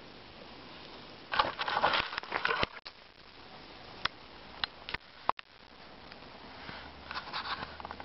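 Dry leaves and twigs on the forest floor rustling and crackling, in a loud burst about a second in and a softer one near the end, with a few sharp clicks in between.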